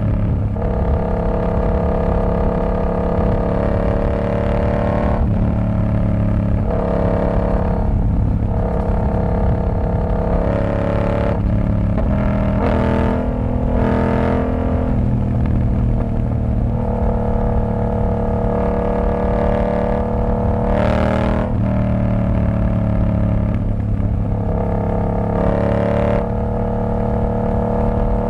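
Yamaha R7's 689 cc parallel-twin engine through a TOCE exhaust with the dB killer removed, running under way with the pitch stepping up and down many times as the throttle and gears change. There are a few short sharp bursts around the middle and again about three-quarters through.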